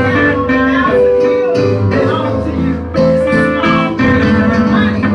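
A gospel band plays an upbeat instrumental led by guitar, with held bass notes under it and drum hits keeping a steady beat of about two a second.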